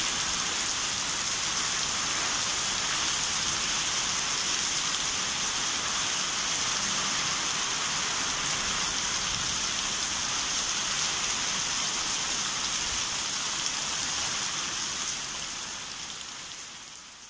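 Heavy rain pouring down steadily on trees and corrugated metal roofs, a dense even hiss that fades out near the end.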